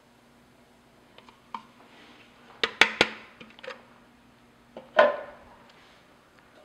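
Hard kitchenware knocks and clatter as the plastic food processor bowl is emptied and put aside: a few light clicks, then three sharp knocks in quick succession about two and a half seconds in, and one more loud knock with a short ring around five seconds in.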